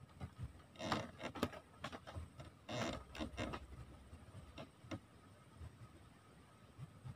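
Scattered small clicks and knocks of handling, in two clusters about a second in and around three seconds in, with a few lighter ones after and quieter toward the end.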